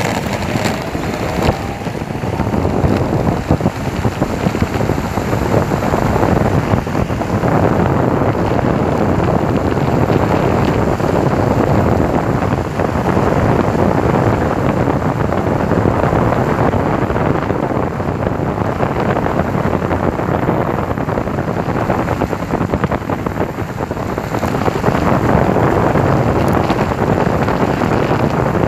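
Raptor 2 hub-motor electric skateboard riding fast: steady wind rush over the microphone mixed with the roar of its wheels rolling on the track. The sound builds as the board accelerates to about 45 km/h in the first few seconds, with a faint rising motor whine at the start.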